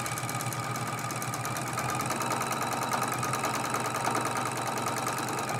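Juki sewing machine stitching a seam at a steady speed, running smoothly with its bobbin area freshly cleared of a big ball of fuzz.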